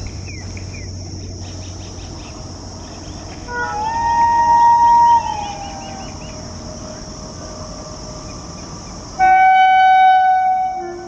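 Indian Railways WAG-9 electric locomotive's air horn sounding twice: first a wavering blast about three and a half seconds in that bends in pitch and slides down as it dies away, then a steady, lower blast lasting about two seconds near the end. The odd, bending tone is the horn's strange sound.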